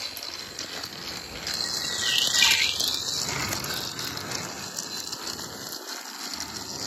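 Small electric motor of a battery-powered Thomas & Friends TrackMaster toy engine whirring steadily as it runs along plastic track, growing louder about two seconds in and then easing off.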